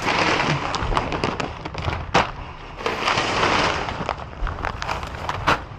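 Crackling and crinkling of bags and trash being handled and rummaged through in a dumpster, with many sharp clicks and a couple of louder knocks, about two seconds in and near the end.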